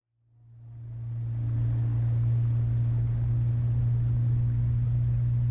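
Engine running steadily with a deep, even hum, fading in over the first second or so.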